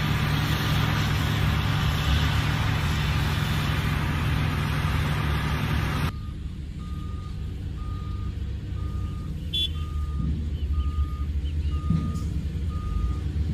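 Caterpillar 120 motor grader's diesel engine running steadily under load. After a cut about six seconds in, the engine is quieter and a reversing alarm beeps steadily, a little under two beeps a second.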